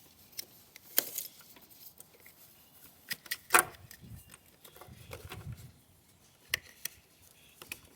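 Plastic connectors and wires of a Wiring Specialties engine harness being handled and fitted: a few sharp clicks and light rattles, the loudest click about three and a half seconds in.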